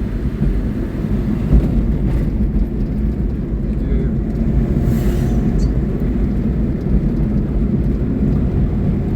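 Steady low engine and road noise of a small truck driving at an even speed.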